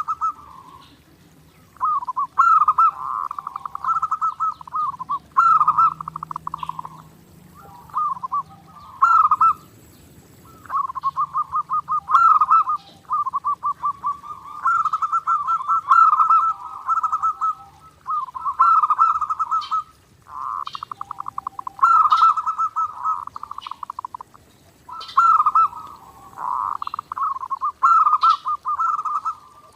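Zebra doves (perkutut) cooing continuously: phrase after phrase of rapid, rolling, trilled coos around a mid pitch, each starting on a higher note, with short pauses between phrases.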